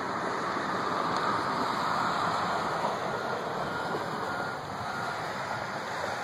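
Steady rushing roar of a large building fire, with a tower and buildings fully ablaze.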